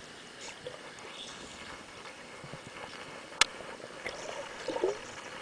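Muffled water sloshing and bubbling heard underwater as a swimmer moves right up against the camera, with one sharp click about three and a half seconds in and a short run of bubbly gurgles near the end.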